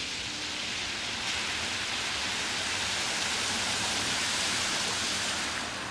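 Car tyres driving through a flooded street, throwing up a hissing spray of water that swells as the car comes close and eases off near the end.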